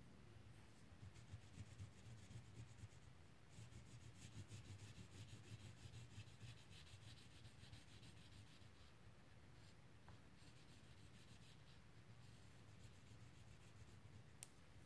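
Blue wax crayon rubbing back and forth on paper in quick, faint scratching strokes, busiest through the first two-thirds and thinning out later. A single sharp click near the end.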